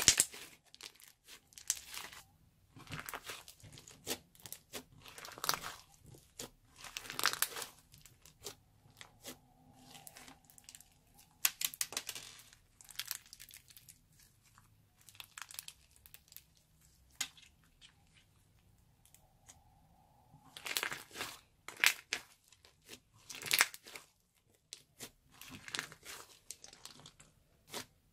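Crunchy white slime mixed with small coloured beads being squeezed, stretched and pressed by hand: irregular bursts of crackling and crunching, with short quiet pauses between handfuls.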